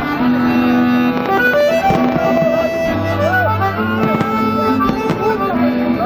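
Instrumental music with long held notes over a steady low bass line.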